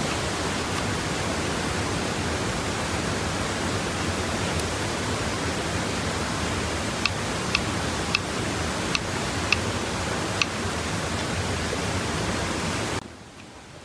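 Steady rushing water noise, with a handful of sharp clicks from about seven seconds in. It drops away suddenly near the end.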